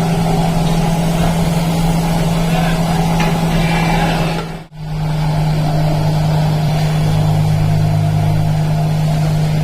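Factory machinery running with a loud, steady low hum. The sound breaks off for a moment about halfway through, and a deeper hum joins in about two-thirds of the way in.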